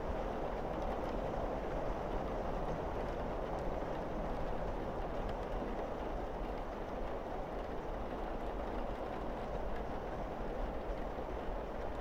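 Heavy rain pouring steadily on a roof and windows: an even, dense rush with faint ticks of single drops through it.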